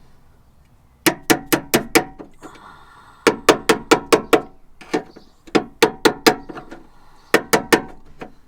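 Hammer blows on the damaged steel sill of a Fiat Panda, knocking the bent lip and fold back into shape. The blows come in quick bursts of four to seven strikes, about five a second, with short pauses between bursts and a brief metallic ring after each strike.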